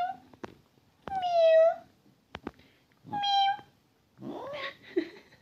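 Domestic cat meowing: short, high meows about a second in and about three seconds in, the first the loudest, then a rougher, noisier call rising in pitch near the end.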